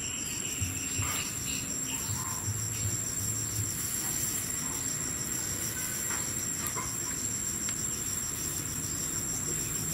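Insects calling steadily: a constant high-pitched trill with a rapid pulsing chirp just below it. A few faint clicks of metal tongs on the wire grill grate.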